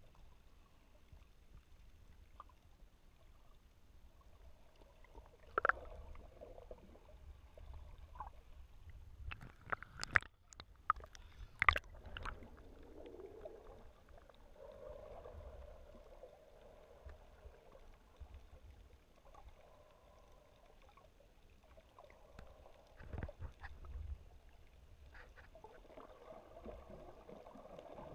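Muffled underwater sound picked up by a submerged camera: a low rumble and gurgling of moving water, with a few sharp clicks, most of them bunched about ten to twelve seconds in.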